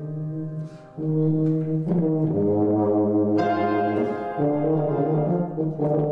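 Background music played on brass instruments: slow, held chords that change every second or so, with a brief drop in level just before a second in.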